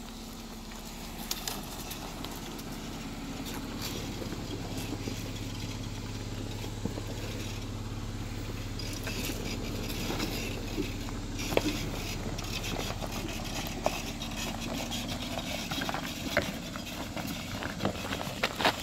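Chevrolet Colorado ZR2 pickup's engine running with a steady low hum as the truck crawls slowly over dirt and rock, a little louder about four seconds in. Scattered crunches and clicks of tyres and footsteps on the rocky trail.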